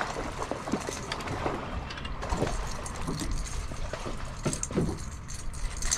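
Water splashing and sloshing around a small boat, with a few short clicks and knocks.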